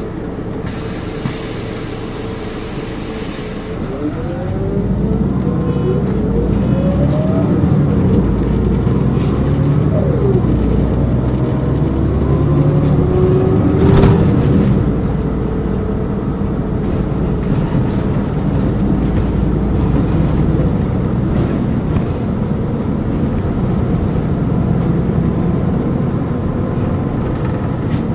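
Volvo D7E diesel and ZF Ecomat 6-speed automatic of a city bus pulling away about four seconds in. The transmission whine rises in pitch and drops back at each upshift, and a high turbo whistle runs for several seconds in the middle before the bus settles into steady running.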